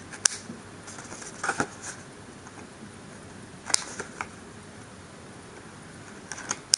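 Scissors snipping off excess tape along the edges of a folded paper model roof: about six short, sharp snips spaced irregularly.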